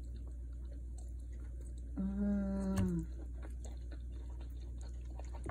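A woman's hummed "mmm" of relish, one steady note about a second long starting about two seconds in, while she chews a bite of food. Faint mouth clicks of chewing around it.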